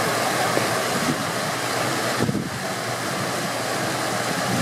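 Fountain jets splashing into a pool: a steady hiss of falling water.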